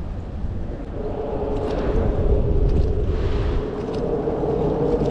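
An engine drones steadily, coming up about a second in and holding on one pitch, over a low rumble.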